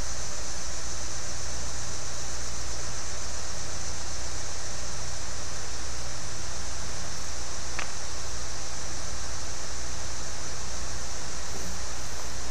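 Steady hiss with a low hum underneath, like a fan or air conditioner running, unchanging throughout. A single faint click about eight seconds in.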